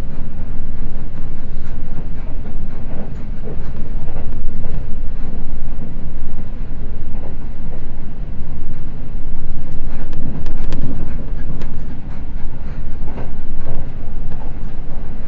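Seibu 10000 series Red Arrow limited express train running at speed: a steady low rumble of wheels on the track with scattered clacks, and a quick cluster of sharp clicks about ten seconds in.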